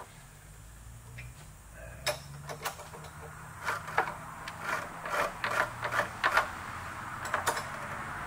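Irregular light metallic clicks and taps of steel parts being handled on a machine vise, over a faint low steady hum.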